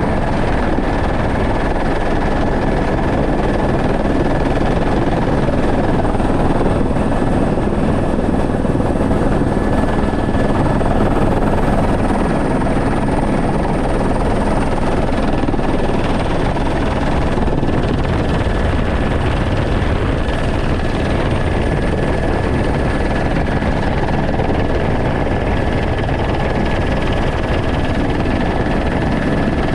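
Helicopter in flight, heard from inside its cabin with the door open: steady rotor and engine noise mixed with rushing air, and a steady high whine over it.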